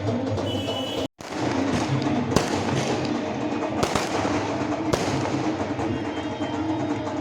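Fireworks going off: three sharp bangs, about two and a half, four and five seconds in, over a steady background din, with a brief dropout about a second in.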